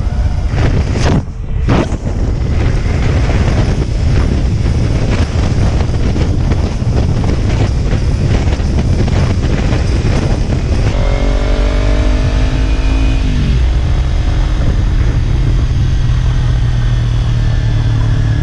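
2014 Kawasaki Ninja 300's parallel-twin engine running through its slip-on exhaust under way, mixed with heavy wind rush on a helmet-mounted microphone. About eleven seconds in, the engine note falls for a couple of seconds as the revs drop, then settles into a steady low drone.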